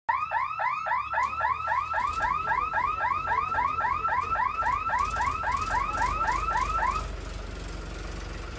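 Electronic warning hooter of a railway level-crossing lifting barrier, chirping about four times a second, each chirp rising then falling. It stops about seven seconds in, once the boom is fully raised. A low engine rumble runs underneath.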